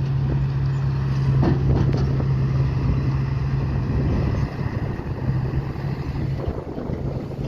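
A heavy diesel engine of construction machinery running with a steady hum, easing off slightly about halfway through. A couple of short knocks come in the first two seconds.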